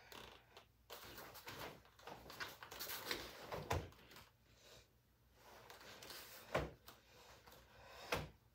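Karate gi swishing and bare feet stepping and sliding on foam mats as a kata is performed, with a few sharp snaps of the uniform on the strikes, the last near the end.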